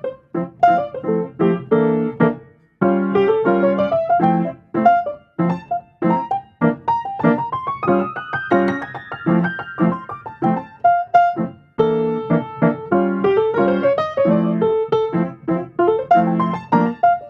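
Background music: piano playing a lively melody of quick notes, with an upward run of notes midway and a short break about twelve seconds in.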